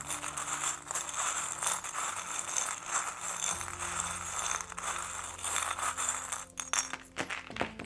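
A handful of small metal charms shaken and stirred by hand in a shell bowl, a continuous jingling rattle, then tipped out near the end so they clatter in a few sharp clicks onto the tarot cards.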